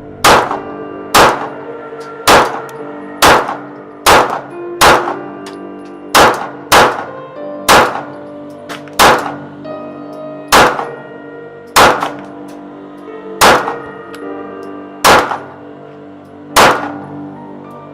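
Glock 45 9mm pistol fired about fifteen times at a deliberate, slightly uneven pace of roughly one shot a second, each shot ringing out briefly.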